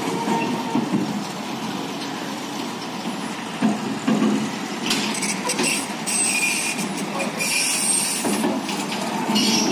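Heavy truck hauling a multi-axle low-bed trailer loaded with a screening plant, rolling slowly past with a steady rumble. High-pitched squeals come in short spells about five seconds in, around eight seconds and near the end.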